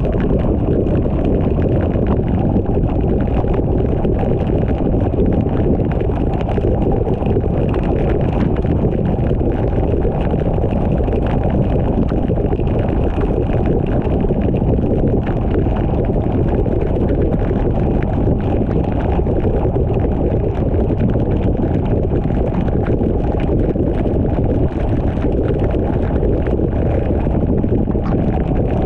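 Steady road noise of a car driving on a rain-soaked road, heard from inside the cabin: a constant low rumble and tyre hiss on wet pavement, with no change in level.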